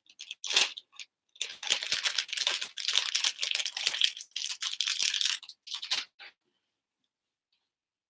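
Small plastic bag crinkling and rustling as it is handled: a brief rustle at the start, then a dense run of crinkling from about a second in that stops about six seconds in.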